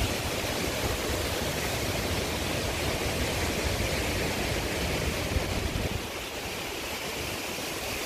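Strong hurricane wind blowing steadily, with gusts buffeting the microphone in a low rumble that eases about six seconds in.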